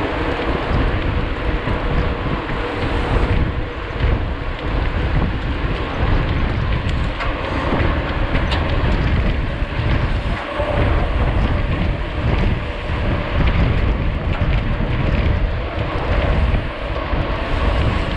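Wind buffeting the microphone of a camera on a mountain bike moving at speed, over a continuous uneven rumble of the bike rolling along the trail, with a few light rattles.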